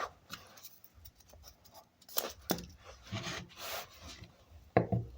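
Hands handling small objects at a workbench: faint scattered clicks and a few brief rubbing scrapes.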